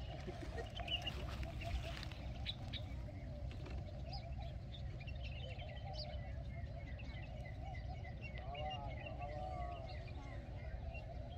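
Small birds chirping and twittering in many short, high calls, over a steady low rumble.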